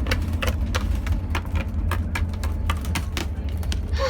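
Small plastic toy figures being handled and moved about: irregular light clicks and taps, several a second, over a steady low rumble.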